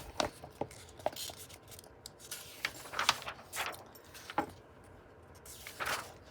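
Pages of a book being handled and turned: a series of short papery swishes and rustles with a few light taps.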